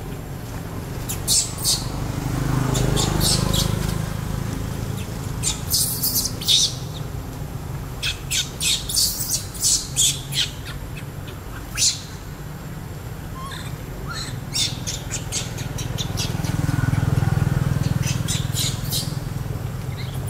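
Baby macaque squealing: loud, short, high-pitched squeaks in repeated clusters, over a low rumble that swells twice.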